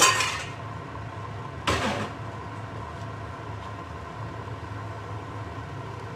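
Metal kitchenware clattering twice in the first two seconds, the two knocks a little under two seconds apart, then a steady low hum with a faint high whine from a running kitchen appliance.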